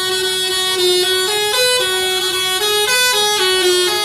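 Bus telolet horn, a Basuri multi-tone horn, playing a melody of held notes that steps in pitch every few tenths of a second.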